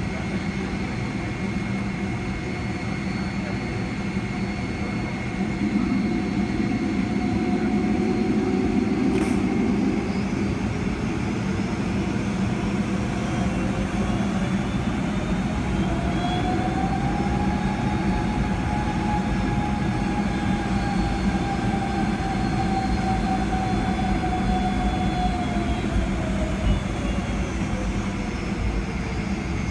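Cabin noise of a Boeing 757-300 taxiing: a steady engine hum with a low rumble from the wheels on the concrete. A whine rises in pitch from about six seconds in, holds, and falls away after about twenty-five seconds.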